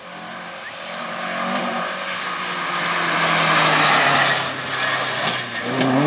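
Historic rally car's engine running hard as the car approaches, getting louder for about four seconds while its pitch slowly falls. A few sharp cracks come in the last second and a half.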